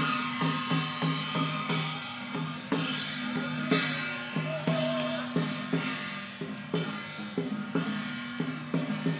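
Parade percussion band of drums, gongs and cymbals playing a steady beat of about three strikes a second, with a cymbal crash roughly once a second.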